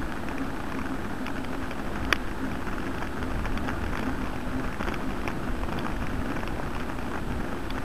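Steady road and wind noise from a camera riding on a bicycle: tyres rolling over asphalt and wind on the microphone, with a sharp click or knock about two seconds in and a few fainter ticks.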